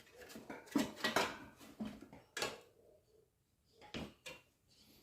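Irregular knocks and clatter of a pedestal fan's parts being handled as the blade's retaining cap is loosened to take the blade off, about six sharp knocks with quieter handling between.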